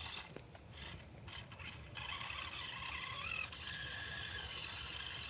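Toy RC monster truck's small electric motor and plastic gearbox whining in on-off spurts as it drives through shallow muddy water, with the whine rising in pitch for a moment near the middle.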